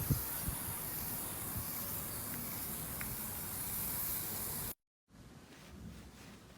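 Slime being handled, heard as a steady fine hiss that cuts off abruptly about three-quarters of the way through. A quieter stretch with a few faint clicks follows.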